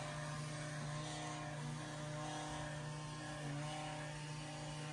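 A steady low machine hum with a few fainter higher tones over it, unchanging throughout.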